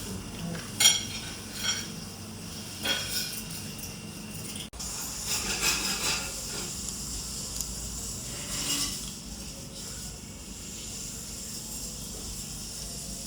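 Scattered clinks and knocks of dishes and cutlery over a steady background hiss, the sharpest clink about a second in.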